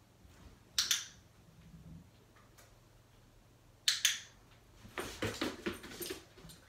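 Two short, sharp double clicks about three seconds apart, then a quick run of light taps and scuffs as a dog gets up off its mat and moves across the floor.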